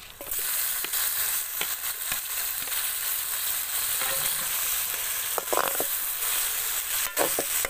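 Chopped tomatoes hitting hot oil and frying shallots in a metal pot, sizzling loudly from about a third of a second in. Near the end a metal spoon stirs and knocks against the pot several times.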